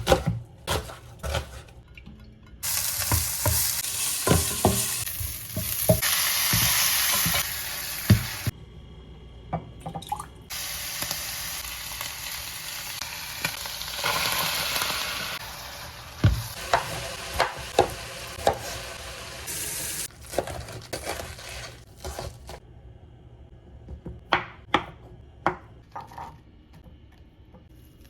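Taco filling sizzling in a frying pan while it is stirred, with a utensil knocking and scraping against the pan. The sizzle comes in two long spells, and the last few seconds hold only light clicks.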